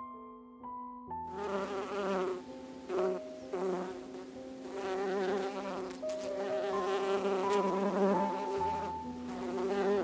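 Honey bees buzzing in a hive, a swarm-like drone that starts about a second in and swells and fades, over soft piano music.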